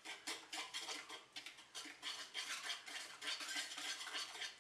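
Wire whisk beating eggs and powdered sugar by hand in a plastic bowl: quick, even strokes, about four or five a second, as the batter is beaten until the sugar dissolves.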